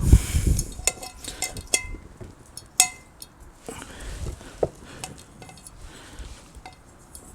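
Metal cookware and utensils clinking and knocking in scattered light strikes, with one sharper ringing clink about three seconds in.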